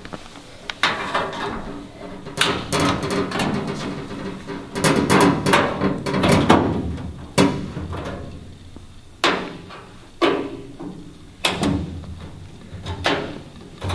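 Irregular metallic knocks and clanks with short ringing tails, from a hand tool working the fasteners of a race car's body side panel and the panel being handled as it comes off. The knocks bunch up in two clusters in the first half and come singly after that.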